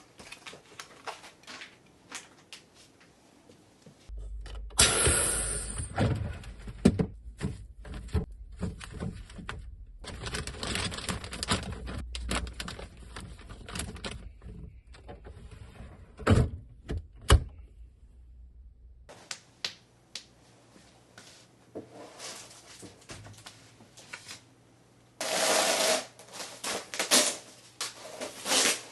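Kitchen handling sounds of groceries being put away: irregular clicks, knocks and rustling of packaging and containers. A low hum starts about four seconds in and stops about fifteen seconds later.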